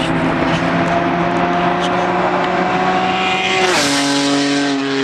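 Straight-piped Acura TL's 3.7-litre J37 V6, with no cats, resonators or mufflers, accelerating hard, its exhaust note climbing steadily in pitch. About three and a half seconds in the note drops sharply as the car goes by and pulls away.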